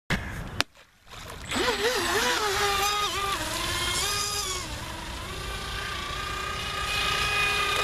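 The electric motor of a small 3S LiPo-powered RC speedboat whining as the boat runs across the water, its pitch wavering up and down with the throttle. A sharp click comes just before the motor starts.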